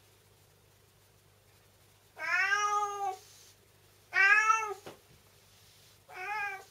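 A black-and-white cat meowing three times, about two seconds apart, each meow rising and then falling in pitch; the first is the longest, about a second.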